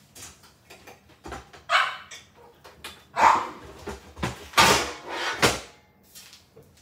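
Non-stick cookie sheets clattering and banging as they are pulled out of a cupboard, a series of sharp bangs through the whole stretch, mixed with a pet spaniel barking.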